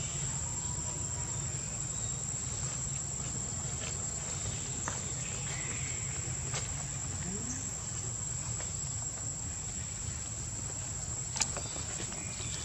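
Steady high-pitched insect drone, with a few brief clicks from rustling leaves.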